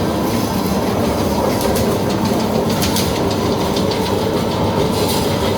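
Reinforcement cage welding machine for concrete pole molds running at full speed, winding 5 mm steel wire: a steady mechanical rumble and clatter with irregular sharp clicks throughout.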